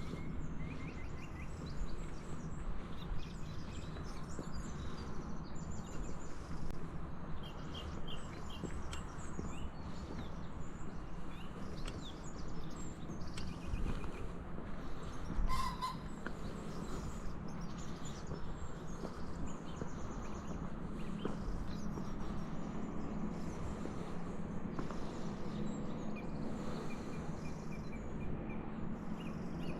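Outdoor village ambience: small birds chirping on and off over a steady low hum, with one louder, brief call about halfway through.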